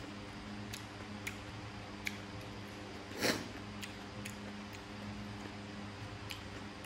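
Eating sounds: sharp, faint clicks every second or so from chopsticks and mouth, over a steady low hum, with one short, louder rush of noise about three seconds in.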